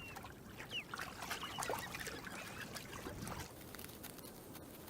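Faint wetland ambience: a few short, high bird chirps in the first two and a half seconds over a soft trickle of water, with small scattered clicks.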